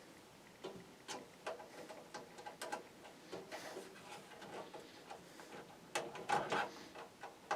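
Screws being started into a power supply's mounting holes through the metal PC case, left loose for now: a run of small metallic clicks and taps, busiest about six seconds in.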